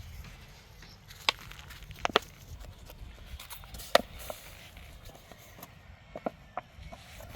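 Irregular sharp knocks, about seven in all, some in quick pairs, the loudest about four seconds in, over a low rumble.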